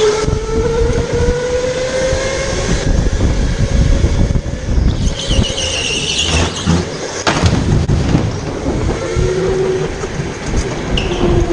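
Electric go-kart running at speed, heard on board: a motor whine that drifts up and down with speed over a heavy low rumble. A high tyre squeal comes through a corner about five to six seconds in, and a single knock follows about a second later.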